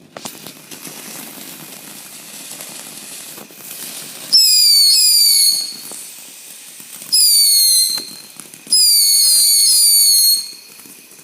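Whistling firework: a steady fizz, then three loud, ear-piercing bursts of shrill whistles, each whistle quickly falling in pitch.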